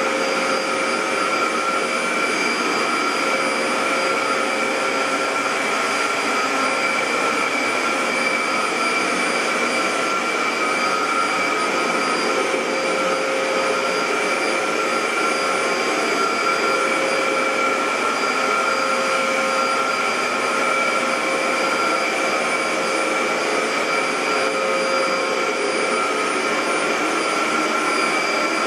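Dyson DC07 bagless upright vacuum cleaner running steadily: an even rush of airflow with a constant motor whine.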